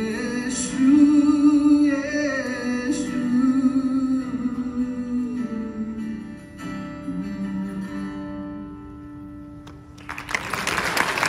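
Male voice singing the closing held notes of a worship song over acoustic guitar accompaniment, the music fading out; near the end the audience breaks into applause.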